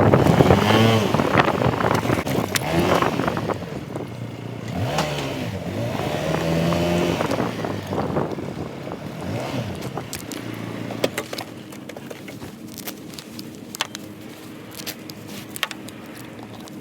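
Motorcycle engine under way, its pitch rising and dropping several times as it accelerates and shifts gears, then settling to a lower, steadier note with scattered clicks for the last few seconds.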